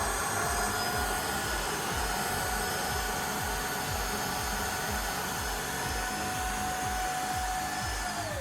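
Tineco Floor One S3 cordless wet-dry floor washer's motor running with a steady, even whine over airflow hiss. Right at the end it starts to wind down.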